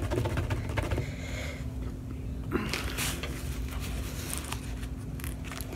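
Soft rustling and small clicks from a rolled diamond painting canvas and its paper being handled, with a steady low hum underneath.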